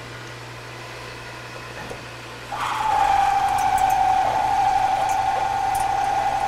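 Metal lathe running with a steady low hum. About two and a half seconds in, the cutting tool bites into the 304 stainless steel bar for a heavy roughing cut, and a much louder, steady high-pitched whine starts and holds, with scattered ticks.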